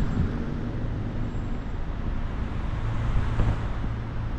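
Steady road noise of a vehicle being driven on a road, with a low engine hum that swells about three seconds in.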